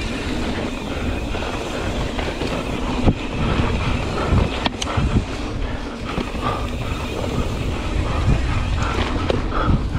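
Mountain bike riding fast down a dirt singletrack: wind buffeting the action-camera microphone over the rumble of the tyres on dirt and the bike rattling over bumps, with a few sharp knocks about three and five seconds in.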